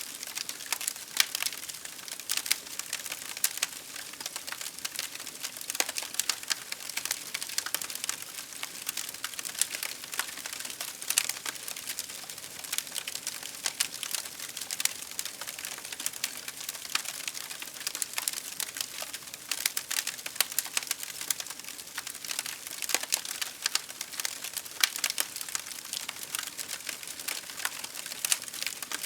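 Wood fire crackling: a steady hiss with frequent irregular sharp pops and snaps.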